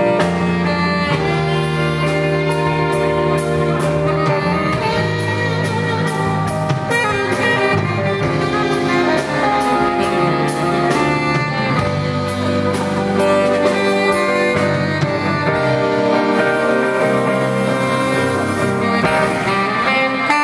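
Tenor saxophone playing a solo of held and moving notes over a live band, with drums keeping a steady beat.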